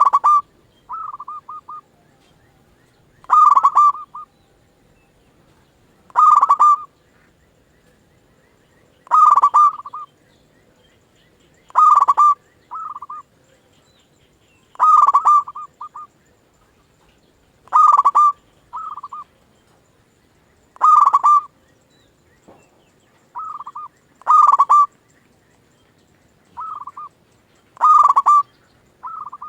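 Zebra dove (perkutut) cooing over and over: a loud coo phrase of several quick notes about every three seconds, with quieter short coos in between.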